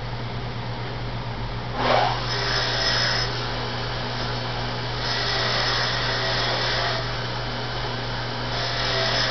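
A wire wheel on a grinder motor starts up about two seconds in, then brushes dirt and paint off a steel U-joint yoke in three spells of high-pitched scrubbing noise.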